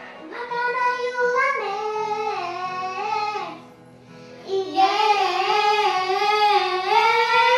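Two young girls singing a pop song into handheld microphones over a backing track, in two long phrases with a short break a little before halfway.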